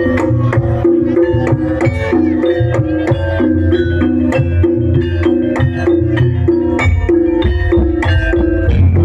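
Javanese jaranan gamelan music: hand drumming over a repeating figure of tuned metal percussion notes, with frequent sharp strikes.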